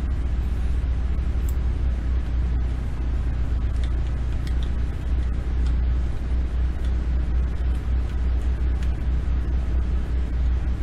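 Steady low hum and rumbling background noise, with a few faint keyboard key clicks.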